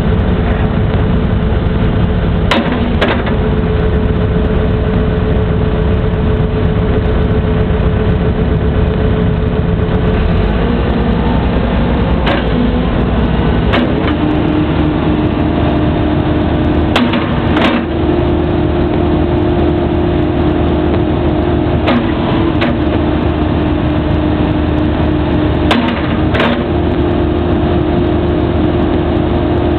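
Excavator's diesel engine running steadily under hydraulic load, with a whine that drops in pitch about halfway through. Sharp metallic knocks come in pairs about half a second apart, five times, as the hydraulic thumb and bucket are moved through their travel.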